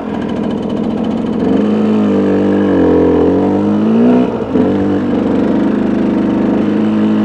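Dirt bike engine running under way on a rough dirt road, its note rising and falling with the throttle, easing off briefly about four seconds in and then holding steady.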